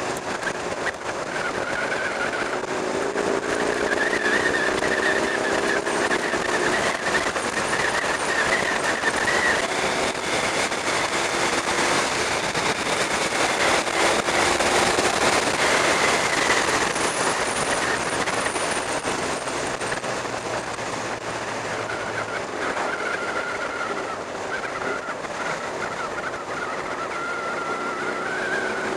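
Motorcycle engine running at road speed under a heavy rush of wind noise on an onboard camera's microphone, its note rising and falling a few times with the throttle.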